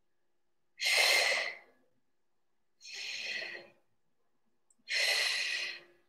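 A woman's forceful exhalations, three of them about two seconds apart, one with each pull of a single-arm resistance-band row; the first is the loudest.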